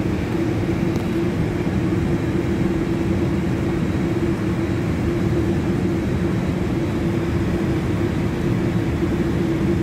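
Steady ambient hum of a powered Airbus A320 cockpit: an unchanging drone from the aircraft's running ventilation and systems, with a constant low tone.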